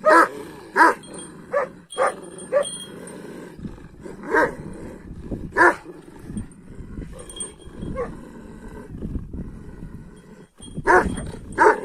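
Large Kangal shepherd dogs barking in short, deep barks: a quick run of them in the first few seconds, two more around the middle, and two close together near the end.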